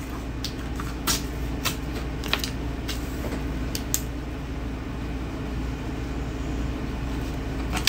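Steady low electrical hum with a series of light clicks and taps in the first half, as small testing items are handled at a table.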